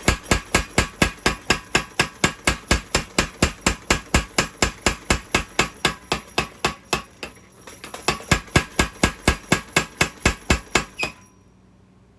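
Power hammer striking a hot Damascus steel knife tang in a steady run of light, rapid blows, about four to five a second. The blows pause briefly about seven seconds in, resume, and stop near the end; these light taps straighten the tang.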